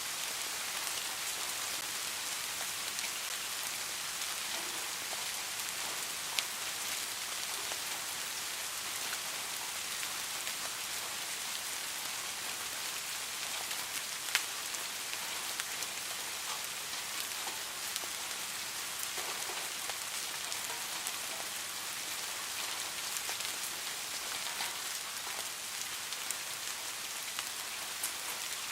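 Steady rainfall: an even hiss of rain with scattered sharper drop hits, one standing out about halfway through.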